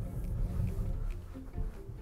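Background music: a run of short notes over a low, dense rumble.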